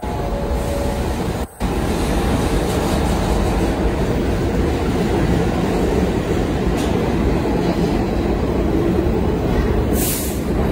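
New York City R46 subway train pulling out of the station, a loud steady rumble of motors and wheels on the rails, with a short hiss about ten seconds in.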